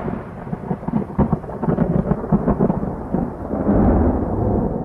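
Loud, dense low rumble laced with crackles, swelling near the end, like a thunder sound effect.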